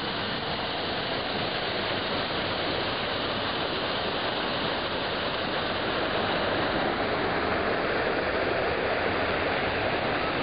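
Man-made rock waterfall pouring into a swimming pool: a steady rush and splash of falling water, growing a little louder about halfway through.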